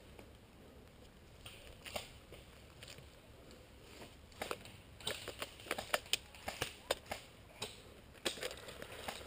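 Footsteps crunching on dry ground, an irregular run of steps that grows more frequent about halfway through.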